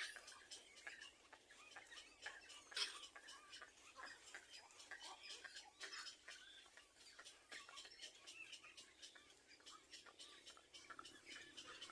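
Small birds at a nest giving many faint, short, high chirps in quick irregular succession, a little louder about three seconds in.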